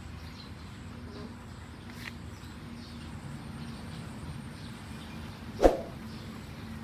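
Quiet outdoor ambience with a low steady hum and faint high chirps. About five and a half seconds in comes a single sharp, loud pop, followed by quick clicks at the very end.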